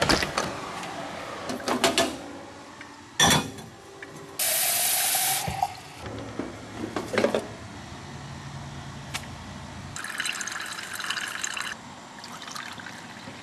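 Kitchen coffee sounds: a few knocks and clatters, then a coffee brewer hissing briefly and trickling into its glass carafe, and near the end coffee poured from a carafe into a ceramic cup.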